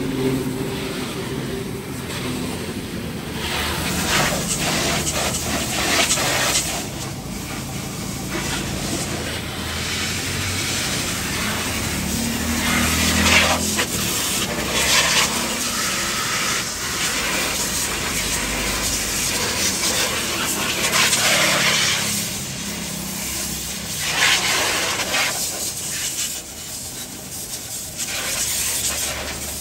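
Water jet spraying on a car during a car wash, hissing in uneven surges, over a low running hum that drops away about two-thirds of the way through.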